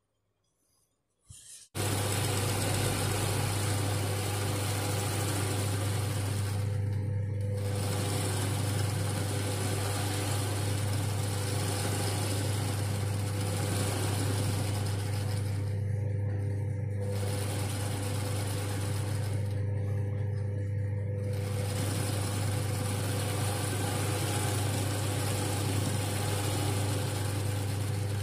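Sewing machine running steadily under its motor as it stitches free-motion machine embroidery, with a strong low hum. It starts about two seconds in and eases briefly three times along the way.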